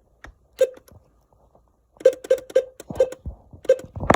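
Weather alert radio's buttons pressed in quick succession while scrolling through its menu. A couple of single presses come first, then from about two seconds in a rapid run of three to four presses a second. Each press is a short click with a brief tone.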